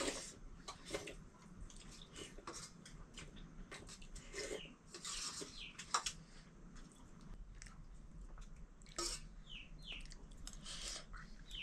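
Faint, scattered clicks and clinks of kitchen utensils and pots being handled, with a few short high chirps in between.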